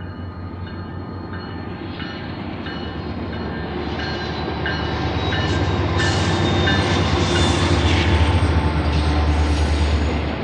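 Diesel freight train approaching and passing close, its low engine rumble growing steadily louder. High wheel squeal rings over it, with a rhythmic click of wheels over rail joints.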